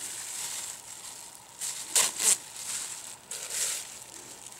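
Rustling and crunching of someone moving and handling things in dry pine needles and brush, with two sharp crunches close together about two seconds in.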